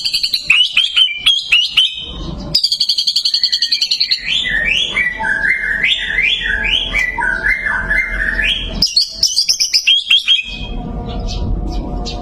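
White-rumped shama (murai batu) singing a loud, varied song: quick sharp notes, a high trill, then a long run of slurred whistled phrases rising and falling, with more sharp notes near the end.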